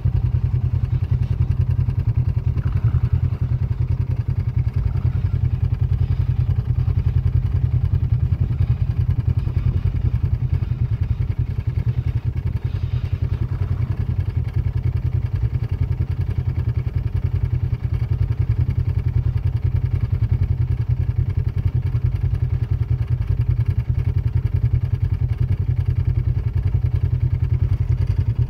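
Vehicle engine idling steadily with a deep, even rumble, and faint higher engine sounds from the distance now and then.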